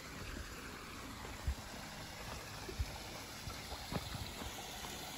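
A creek running as a steady rush of water, with three dull thumps of footsteps and phone handling on a dirt trail.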